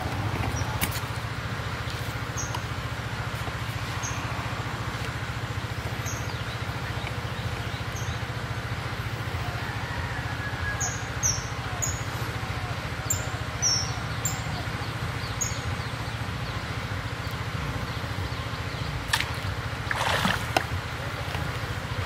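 Steady low outdoor hum with short, high, falling chirps of a small bird every couple of seconds, bunching up midway. About 20 s in there is a brief splash as the baited hook line lands in the pond.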